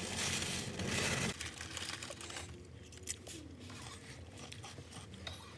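Crinkling and rustling handling noise that cuts off abruptly a little over a second in, followed by a quieter stretch with a few small clicks.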